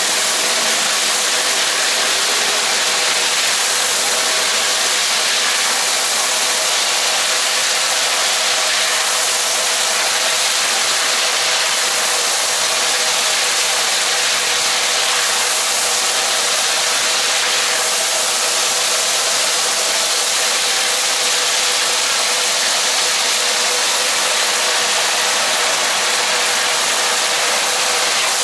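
Steady roar of a high-output gas wok burner, with a wok of liquid bubbling and sizzling over it.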